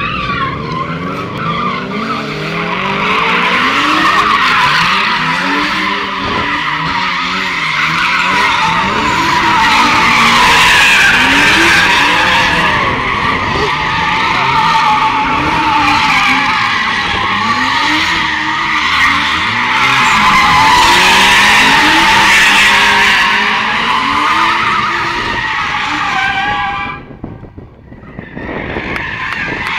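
A car drifting: tyres squealing continuously while the engine revs rise and fall beneath. Near the end the squeal breaks off briefly, then starts again.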